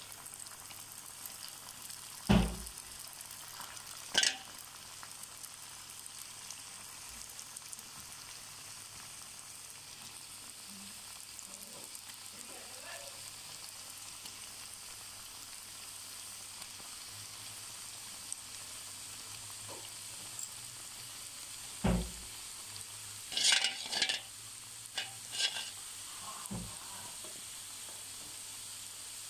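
Seeni bello dough pastries deep-frying in hot oil in a metal wok: a steady sizzle. A couple of sharp knocks come near the start, and a cluster of knocks and clinks near the end.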